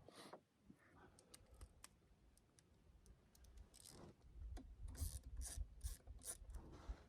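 Faint clicks, scrapes and rubbing of metal parts and tools being handled as an aftermarket muffler is fitted to a chainsaw. A run of short, slightly louder scraping strokes comes about four seconds in.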